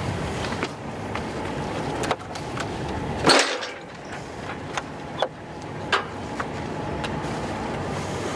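Steady wind and boat noise on a sailboat's deck, with a few scattered sharp clicks and knocks of lines and deck hardware being handled, and a brief louder rush about three seconds in.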